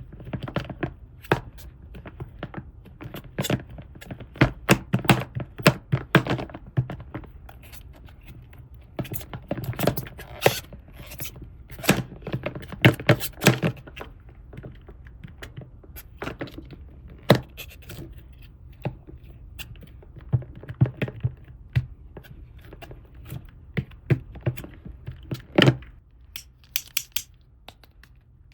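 Hands handling small plastic toy pieces: a busy string of clicks, taps, light knocks and scrapes, coming in clusters with short quieter gaps and thinning out near the end.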